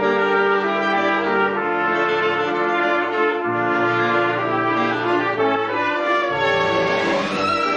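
Orchestral soundtrack music led by brass, playing long held chords, with a rising swell near the end.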